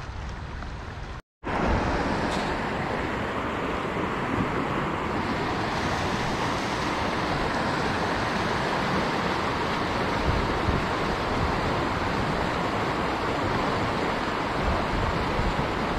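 Fast-flowing river water rushing steadily. It cuts out completely for a moment about a second in, then comes back a little louder and stays even.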